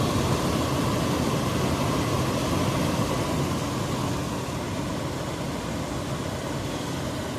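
HomeLabs 30-pint compressor dehumidifier running steadily: the fan blows air over a low compressor hum. The compressor is on and working normally, with the coil cold and water dripping.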